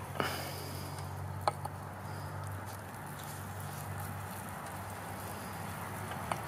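A few light, sharp clicks of a glass beaker being handled on an electric hot plate, over a faint low hum.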